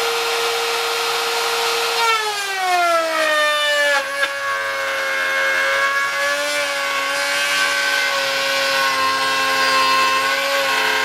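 Electric router, mounted upside down in a workbench, running at a steady high whine, then dropping in pitch over about two seconds as the bit takes its cut into a small piece of wood, and running on at the lower, loaded speed.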